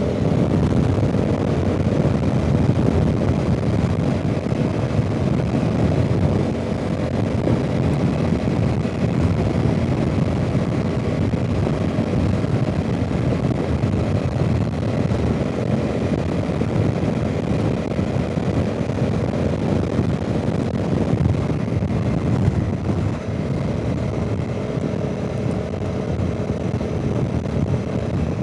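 Honda CRF300 Rally's single-cylinder engine running steadily under way, mixed with heavy wind noise on the microphone.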